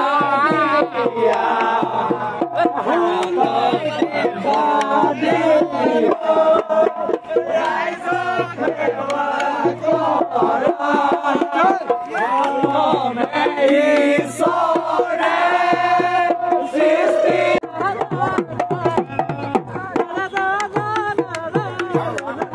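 A group of young men chanting and cheering together to the beat of a barrel drum, with sharp drum strokes running through the voices.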